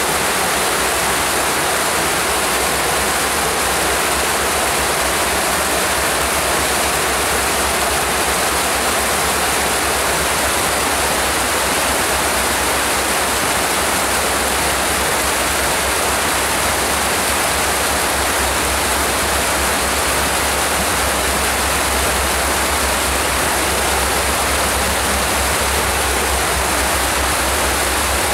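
Whitewater rapids in a rocky creek, rushing steadily and loudly without a break.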